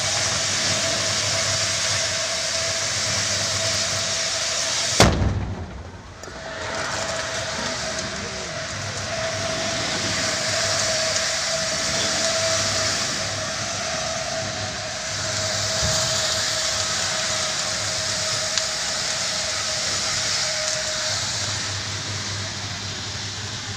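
Fire from a burst gas cylinder, burning gas rushing out with a steady roar and a thin steady tone through it. About five seconds in there is a single loud bang, and the roar drops for a second before coming back.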